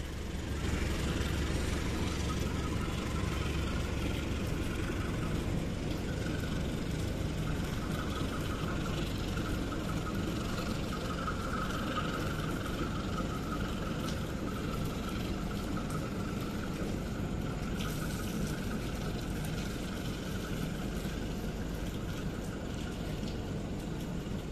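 Freight train rolling slowly along a station track: a steady rumble with a high whine that swells near the middle and eases off.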